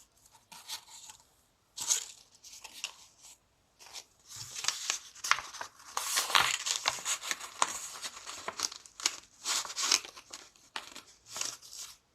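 Paper daisies and the card's folded paper panels rustling and crinkling as they are pressed down into an exploding box card. The sound is a run of short scrapes and crackles, sparse at first and busiest from about four seconds in.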